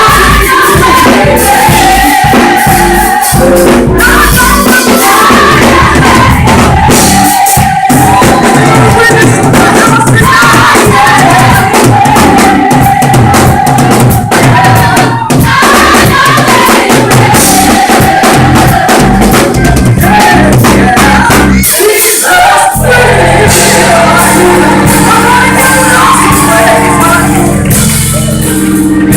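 Live gospel music: a vocal group sings with a full band, drums and tambourine, holding long notes. About three-quarters of the way through, the drums drop away, leaving sustained chords under the singing.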